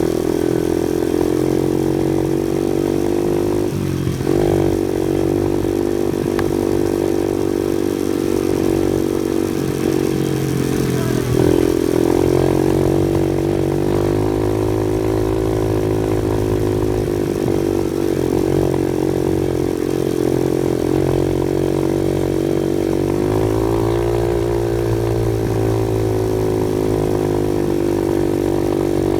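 Off-road vehicle engine running continuously while driving a dirt trail; its pitch drops and climbs back a few times as the throttle and gears change.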